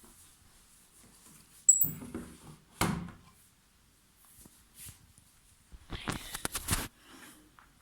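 Knocks and clicks from handling a Beko washing machine's door and controls: two sharp knocks with a brief high beep, then a quick run of clicks near the end.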